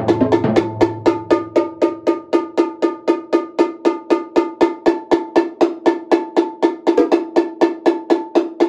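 Cowbell struck with a stick in a steady, even run of about five strokes a second, every stroke ringing at the same pitch. A low drum resonance from the preceding drumming dies away over the first two seconds.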